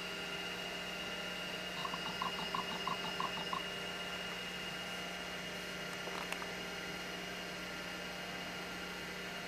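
MacBottom external hard drive running after being switched on, a steady hum with a constant high whine. About two seconds in comes a short run of seven quick, even ticks.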